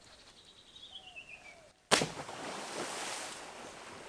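A faint descending whistled call, then about two seconds in a sudden loud crack followed by about two seconds of rushing noise that slowly fades.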